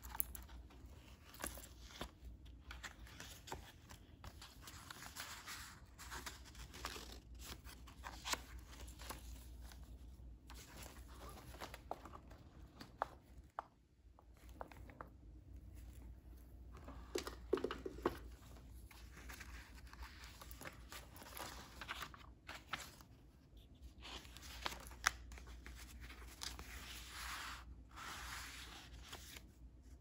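Paper pages of a handmade junk journal rustling and crinkling as they are turned and handled, with scattered soft taps and clicks.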